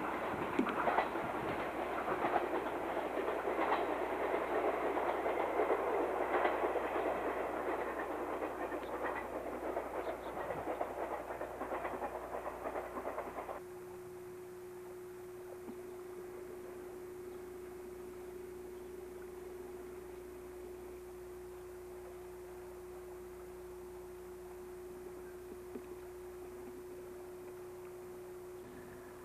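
Electric train running on jointed track, wheels clicking over the rail joints with rattling and rumble, slowly easing. About halfway through it cuts off abruptly, leaving only a steady faint hum.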